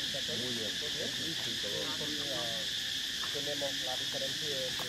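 Steady high-pitched drone of insects in the forest, with indistinct voices chattering faintly underneath.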